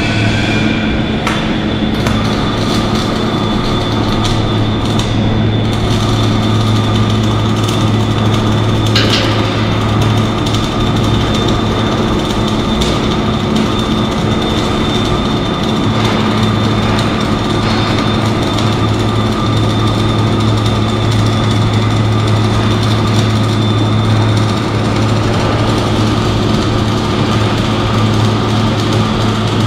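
Electric arc welding running without a break: a loud steady deep hum under a dense, even crackle, with a faint high whine above it.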